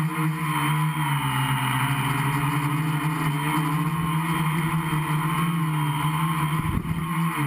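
Gaui 500X quadcopter's electric motors and propellers humming steadily in flight, heard from a camera mounted on the frame, the pitch wavering slightly as the throttle changes.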